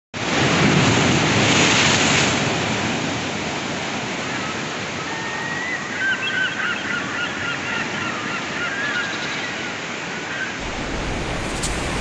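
Sea surf breaking and washing over rocks, loudest in the first couple of seconds. From about five seconds in, a run of short, high bird calls sounds over the surf for several seconds.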